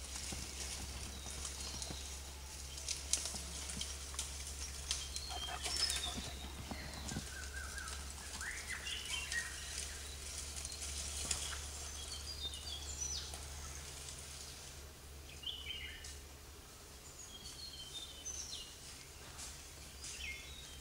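Forest birds calling with short chirps and brief whistled glides scattered throughout, over a steady low hum. A few sharp cracks or snaps stand out in the first six seconds.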